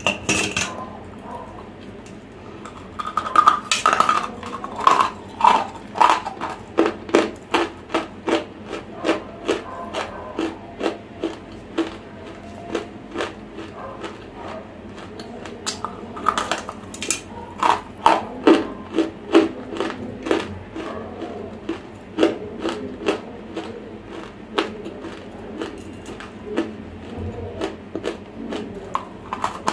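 Close-miked crunching of dry, semi-roasted edible clay being bitten and chewed: a long run of sharp, crisp crunches, several a second, thinning out for a while in the middle and again near the end.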